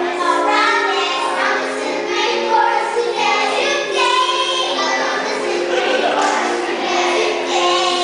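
A group of young children singing a song together over instrumental accompaniment.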